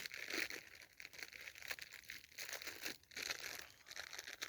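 Plastic wrapper of a packet of chocolate digestive biscuits crinkling and rustling in irregular crackles as it is opened and handled.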